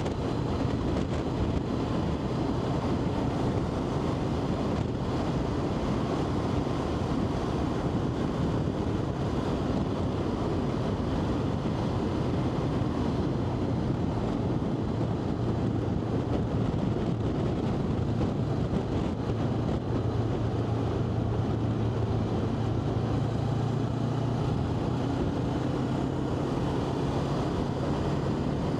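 Motorcycle engine running at steady road speed, with heavy wind rush over the microphone. The engine note grows stronger and rises slightly in pitch about twenty seconds in.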